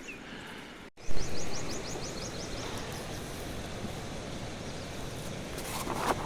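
Fast river water rushing steadily, starting abruptly about a second in. A bird gives a quick run of high chirps, about seven a second, just after it starts.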